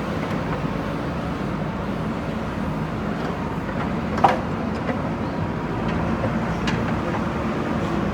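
JCB backhoe loader's diesel engine running steadily, with a sharp knock about four seconds in and a fainter one near seven seconds.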